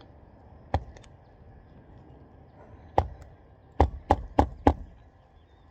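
Hammer driving a roofing nail into an asphalt shingle by hand: one sharp strike, a pause, another strike, then four quick strikes about a third of a second apart.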